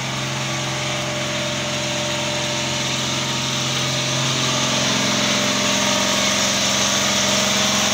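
KAMA diesel generator running steadily, growing louder about four to five seconds in as the door of its shed is opened.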